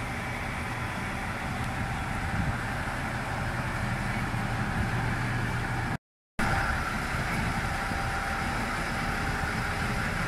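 Diesel railcar (Tenryū Hamanako Railway TH2100 series) running steadily at idle while it turns on a railway turntable. The sound cuts out for a moment about six seconds in.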